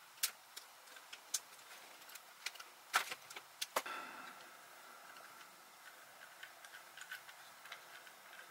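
A handful of sharp clicks, mostly in the first four seconds: wire cutters snipping the thin wires on a Furby's internal mechanism, and its plastic parts being handled.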